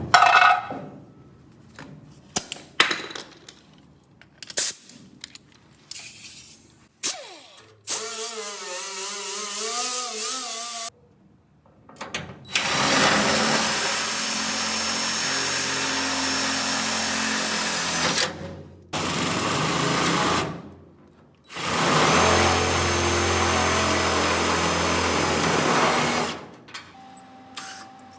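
Handheld power tool on car body metal, run in several bursts: a short run whose pitch wavers under load, then two long steady runs of five to six seconds each, after a few seconds of clicks and knocks from handling the parts.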